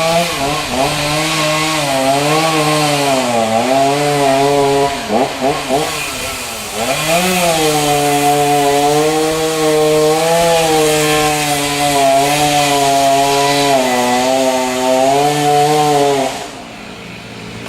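Chainsaw engine running at high revs, its pitch sagging and wavering repeatedly as it takes load in cutting wood. The sound drops away suddenly near the end.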